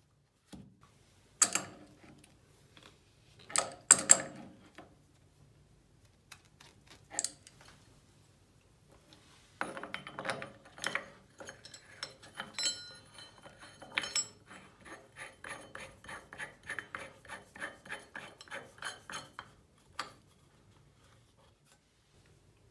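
Small metal clinks and knocks as tap parts are handled, then a run of quick ticking clicks, about three a second, for roughly ten seconds from about ten seconds in, as the tap's cover is screwed onto the brass spindle's thread by hand.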